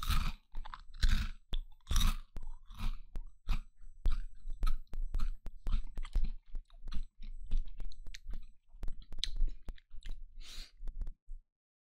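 A person chewing a crunchy snack with his mouth open: irregular loud crunches and wet mouth clicks, cutting off suddenly near the end.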